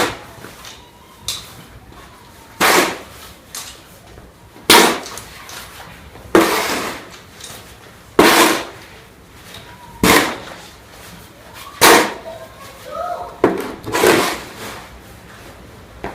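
Snow shovel, freshly sprayed with cooking spray, scraping and scooping snow in about seven short strokes roughly every two seconds.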